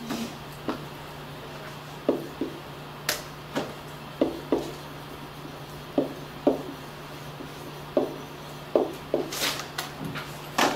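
A pen tapping and knocking against a whiteboard while words are written: a series of short, irregular taps, with a brief rustle near the end, over a steady low hum.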